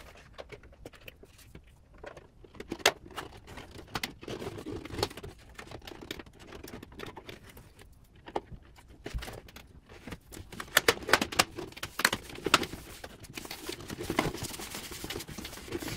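Plastic wing mirror cover handled and pressed onto a car's door mirror by hand: scattered small plastic clicks and taps with some rustling, a denser run of taps about two thirds of the way through.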